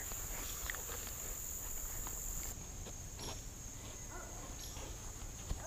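Steady high-pitched buzz of an insect chorus in summer woodland, with its highest layer dropping out about halfway through. A few faint clicks and rustles of handling sound over it.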